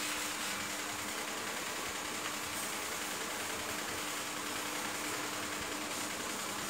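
Motor-driven rotisserie spit turning a whole pig over charcoal: a steady motor hum under a constant hiss.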